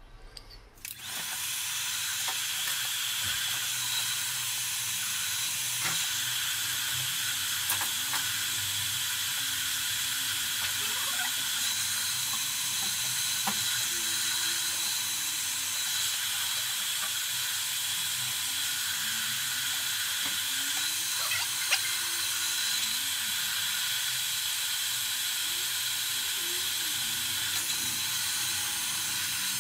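Handheld electric heat gun blowing hot air onto a motorcycle frame's steering head: a steady, even hiss of fan and airflow that comes in about a second in. The head is being heated to expand it so the new bearing races can be punched in more easily.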